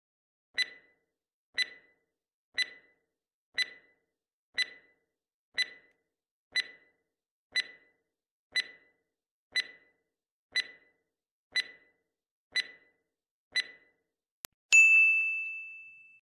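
Quiz countdown-timer sound effect: a short tick once a second, fourteen times, then a faint click and a loud bright ding that rings out and fades over about a second and a half as time runs out and the answer is marked.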